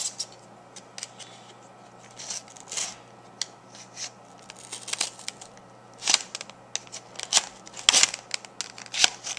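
Serrated knife sawing through a hard clear plastic blister pack, with scattered scraping clicks and plastic crackles that get louder and more frequent in the last few seconds.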